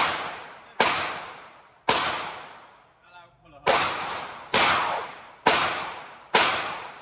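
Seven gunshots from a firearm at a shooting range, fired one at a time in two groups: three quick shots, a pause of nearly two seconds, then four more at a steady pace under a second apart. Each shot is a sharp crack followed by a long fading echo.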